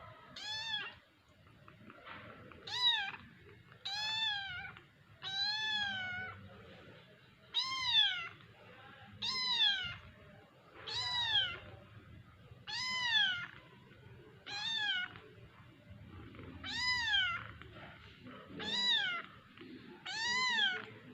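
A kitten meowing over and over: about a dozen high-pitched meows, each rising then falling in pitch, coming every second and a half to two seconds.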